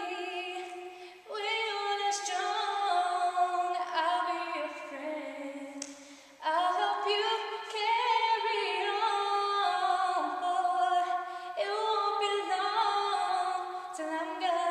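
A woman singing unaccompanied in long, held notes, phrase after phrase, her voice echoing around a large, empty RV workshop.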